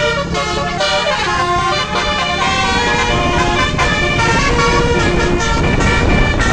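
Indonesian telolet bus horns playing a tune, several tones sounding together and stepping from pitch to pitch, over the low rumble of the bus's engine.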